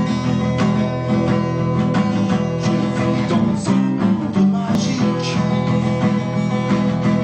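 Acoustic guitar strummed in a steady rhythm, its chords ringing, with no singing.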